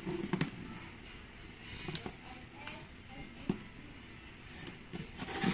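A few small, sharp clicks and light taps, spaced a second or so apart, as the parts of a Lenovo Tab 7 tablet are handled and fitted back together during a screen repair.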